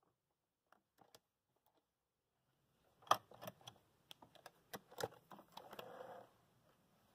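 A few faint ticks, then from about three seconds in a run of irregular clicks and cloth rustling at a domestic sewing machine, as the stitched napkin is pulled out from under the presser foot with its threads drawn out behind it.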